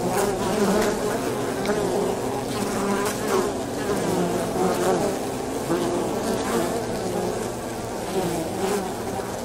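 Buzzing of Polybia occidentalis paper wasps around their nest: several overlapping wing tones that waver up and down in pitch as the wasps come and go.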